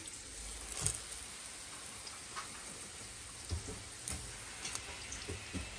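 Hot cooking oil crackling and spattering faintly in a frying pan, with a few soft knocks.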